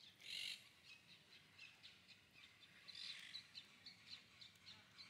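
Near silence, with faint short bird chirps repeating through it and two brief soft hisses, one about half a second in and one about three seconds in.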